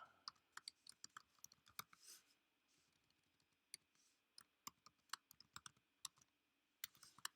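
Faint, irregular clicking of computer keys and mouse buttons as someone types and clicks at a computer.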